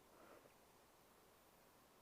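Faint breathing of a sleeping young woman: one soft breath in the first half second, ending in a small click, then only faint hiss.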